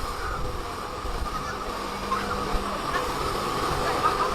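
Heavy earthmoving machine's diesel engine running steadily, a low rumble with a steady hum.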